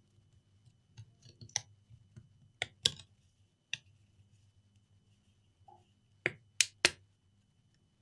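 Short, sharp clicks and taps at irregular intervals, a cluster of three louder ones a little after six seconds in: a laptop's solid-state drive and its fittings being worked loose and lifted out of the slot by hand.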